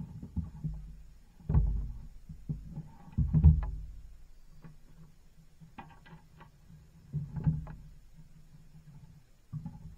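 Irregular low rumbling buffets and knocks on the camera's microphone, loudest about one and a half and three and a half seconds in, with a weaker surge about seven seconds in.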